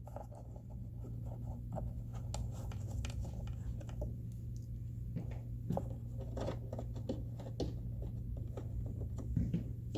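Small screws being driven by hand into plastic toy-house roof parts: a run of irregular small scratching clicks and taps of plastic being handled, over a steady low hum.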